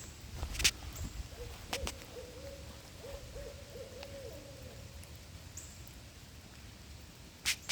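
An owl hooting: a run of wavering hoots lasting about three seconds, starting a little over a second in. A few sharp taps stand out, the loudest just before the hoots. A steady low rumble runs underneath.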